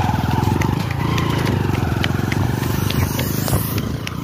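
Motorcycle engine running while the bike is ridden along a road, a steady run of fast, even firing pulses that eases slightly near the end.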